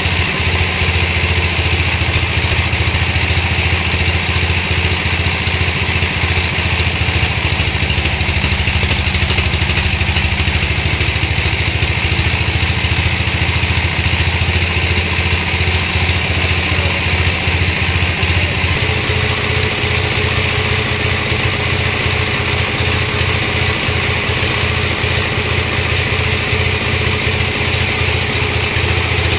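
Sawmill machinery running steadily: a loud, constant engine drone with a steady hiss over it, shifting slightly in pitch about two-thirds of the way through.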